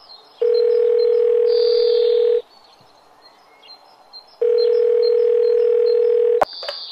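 Telephone ringing tone heard down the line: two steady rings of about two seconds each, two seconds apart. A sharp click cuts off the second ring.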